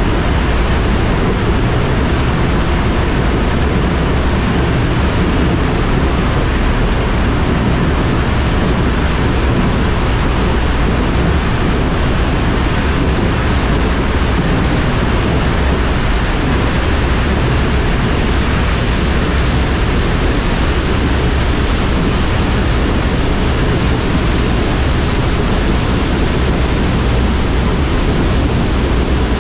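A 60-inch Orbinox fixed cone valve discharging at full flow: a loud, steady rush of water spraying from the cone, heaviest in the low end.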